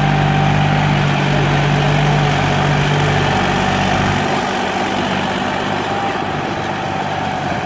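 Diesel tractor engine running steadily while ploughing, with a deep engine drone that weakens a little over halfway through.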